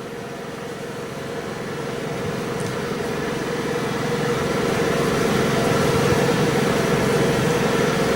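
Steady mechanical hum, like a running engine or air-conditioning unit, slowly getting louder.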